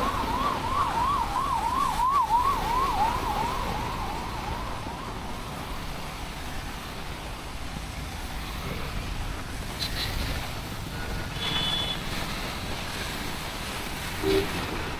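Vehicle siren in a fast warble, rising and falling about three to four times a second, fading away within the first few seconds over the steady hiss of rain and street traffic. A few short high beeps sound later.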